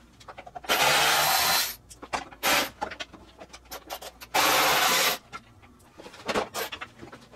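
Workshop noise while working on a car engine: two steady hissing bursts of about a second each, with short scraping and clattering sounds between them.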